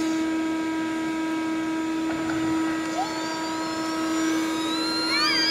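Wet/dry shop vac running steadily: an even motor hum with a steady whine over it. Near the end a high tone rises.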